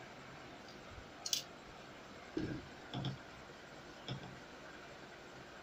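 A few clicks and soft knocks of a plastic set square and pencil being handled and set down on drawing paper, the sharpest click about a second in, then three softer knocks.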